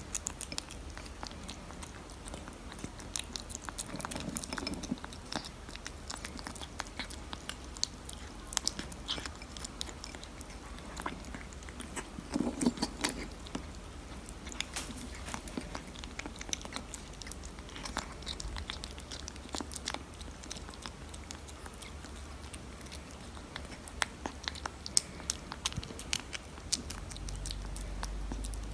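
Tabby kitten chewing and crunching dry kibble mixed with wet tuna and chicken cat food, with irregular sharp crunches and mouth clicks.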